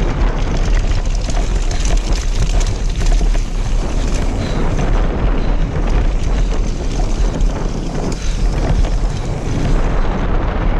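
Wind buffeting the microphone of a mountain biker's action camera over the crunch of tyres on loose gravel, with frequent rattles and knocks as the bike rolls fast downhill over bumps.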